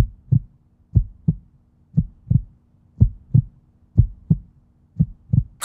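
Heartbeat sound effect: low double thumps, lub-dub, about one beat a second, six beats in all.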